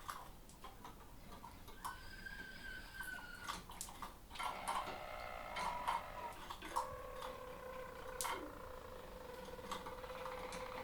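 Harz roller canaries singing their low, rolled song: a held tone about two seconds in, then shorter rolled notes, and from about two-thirds through a steady rolling trill that carries on. Scattered sharp clicks sound among the song.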